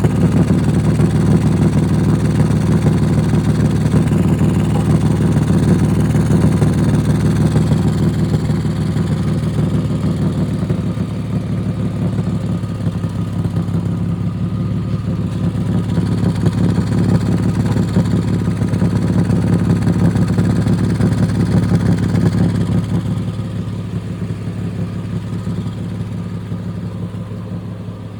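Nissan engine idling steadily, its exhaust pulsing through a suspected exhaust leak. The sound gets quieter over the last few seconds.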